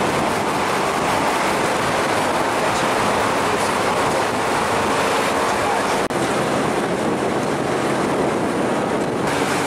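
A car driving, filmed from in and around the moving vehicle: steady road and wind noise, cut by a brief dropout about six seconds in.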